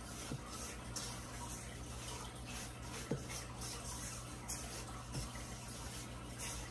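Silicone spatula stirring and scraping a dry, gritty mix of cocoa powder and sugar around a stainless steel bowl: repeated uneven rasping strokes, with a few soft knocks.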